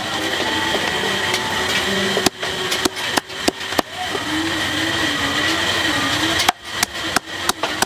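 Cleaver chopping on a wooden chopping block: sharp strikes in clusters, four about two seconds in, a pause, then several more near the end, over a steady background hum.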